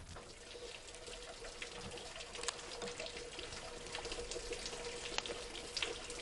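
A small wall fountain: a thin stream of water falling from a spout into a stone basin, splashing and trickling steadily with many small drips.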